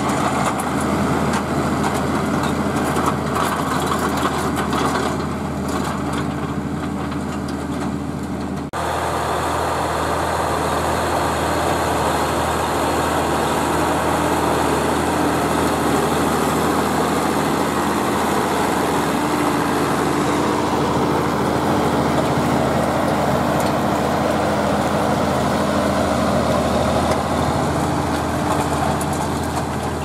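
Zetor Crystal 12145's six-cylinder diesel engine running steadily under load, pulling a cultivator through the soil. The sound changes abruptly about nine seconds in, where the footage cuts to another shot of the same tractor.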